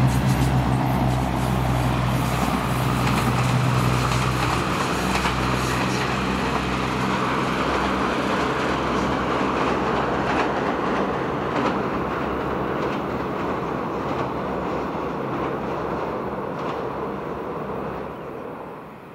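Japanese-built NKF diesel railcar train passing close by and running away: a steady engine drone is strong for the first few seconds, then the rumble and rattle of the wheels on the rails slowly fades as the train recedes, with a few sharp clacks along the way. The sound drops off sharply just before the end.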